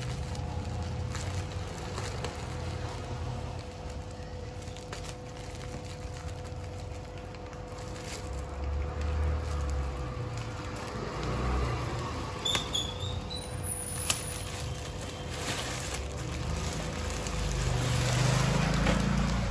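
Clear plastic fish-shipping bag being handled, rustling and crinkling as its knotted neck is worked open and the bag is lowered into a tub of water. Under it runs a low background rumble and a steady faint hum.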